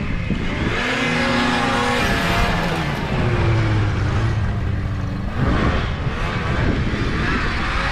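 Yamaha Phazer snowmobile engine revving, its pitch rising and falling several times.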